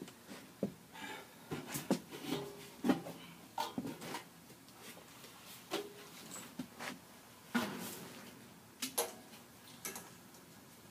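Sheet-metal blower housing with its squirrel-cage wheel being handled and slid into an air handler's blower compartment: an irregular scatter of knocks and clunks of metal against metal.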